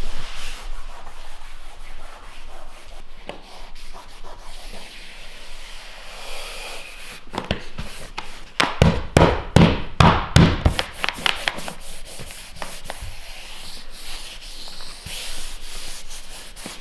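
Faux wood flooring planks scraping and rubbing as they are slid and fitted across the floor, with a quick run of knocks about halfway through.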